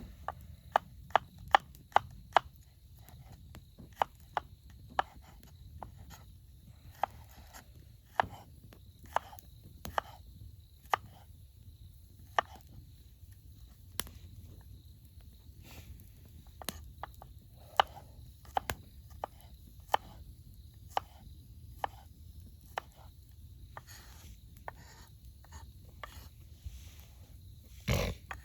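A knife chopping on a cutting board: sharp, separate strokes, quick and fairly even at first, then more scattered, with a heavier knock near the end.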